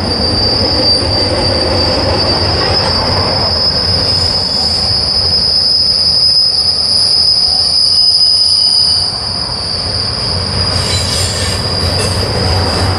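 Flanged steel wheels of a passing intermodal freight train squealing steadily against the rail on a curve: one high, held squeal over the low rumble of the cars.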